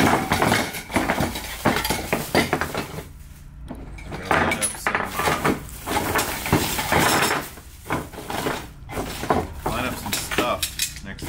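Plastic shopping bags rustling and crinkling as they are handled and emptied, with loose metal electrical fittings clinking against each other.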